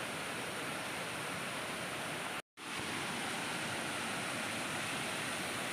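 Small rocky waterfall cascading: a steady rush of falling water, which cuts out completely for a split second about halfway through.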